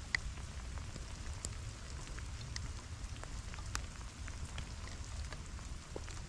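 Steak searing in a cast-iron pan: a steady sizzle with irregular sharp pops of spattering fat.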